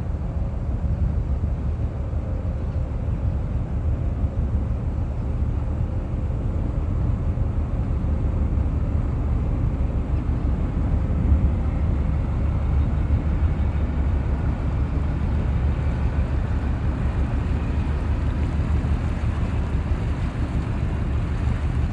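Steady wind buffeting the microphone, a continuous low rumble with no distinct events.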